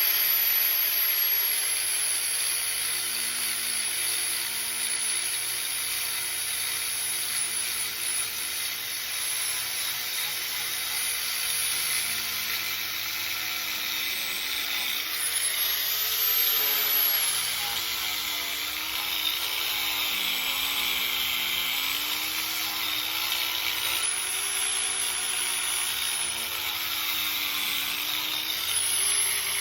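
Angle grinder running steadily while grinding layers of paint off a metal door hinge; its whine sags and recovers in pitch several times as it is pressed into the work.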